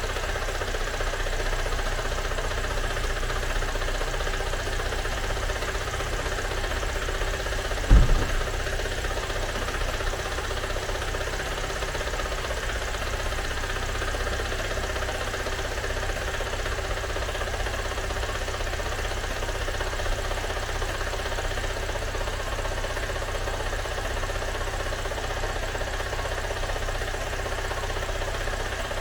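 Freshly rebuilt Great Wall WEY car engine idling steadily on its first run after the rebuild, with one sharp thump about eight seconds in.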